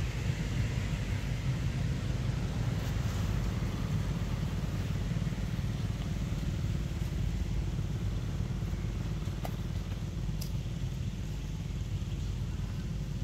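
Steady low rumble with a faint hiss above it, and one faint short tone and a click about ten seconds in.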